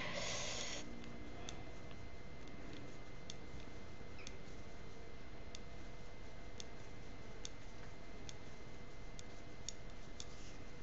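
Metal knitting needles clicking lightly as stitches are worked quickly, an irregular light tick about once a second over faint room hiss, with a short rustle at the very start.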